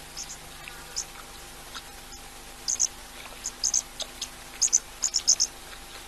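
Short, high-pitched chirps from a small animal at the waterhole, coming in irregular clusters of two or three and growing busier in the second half. A faint steady hum runs underneath.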